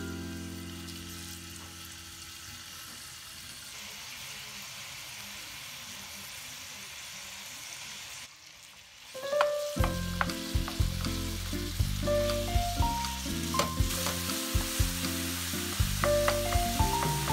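Minced meat sizzling in hot olive oil in a frying pan as it is crumbled in, then stirred with a wooden spatula, with short clicks of the spatula against the pan. Light background music with stepped notes comes in about halfway.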